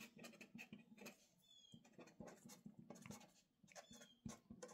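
Very faint scratching and tapping of a pen writing on paper in short strokes, with two faint brief high squeaks about a second and a half in and near the end.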